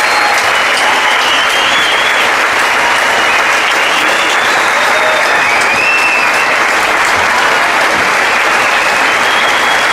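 Large audience applauding loudly and steadily, with a few high whistles rising and falling above the clapping.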